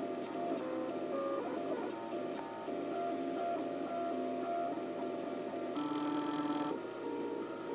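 Dual-extruder MakerBot 3D printer at work: its stepper motors whine in clear tones that jump in pitch with each move of the print head. A louder, higher chord of tones sounds for about a second, six seconds in.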